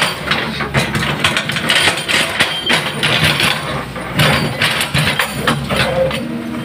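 Caterpillar hydraulic excavator's diesel engine running steadily under load while the bucket digs into soil and stones, with repeated knocks and scraping of steel against earth and rock.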